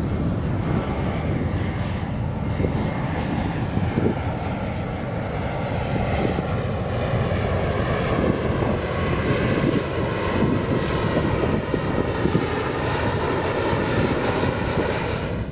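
Boeing 747-400 freighter's four jet engines at takeoff thrust as it rolls and climbs away: a loud, steady rumble with a faint whine that drifts slowly down in pitch.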